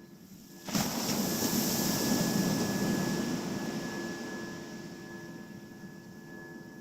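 Battery-powered synthesizer holding a steady drone of a few sustained tones. Under a second in, a sudden loud rush of noise cuts in and slowly fades over the next few seconds.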